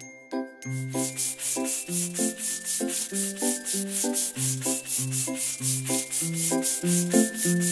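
Cartoon paintbrush-stroke sound effect: a fast, even run of scrubbing swishes, several a second, over a children's song backing track with a plucked melody and bass.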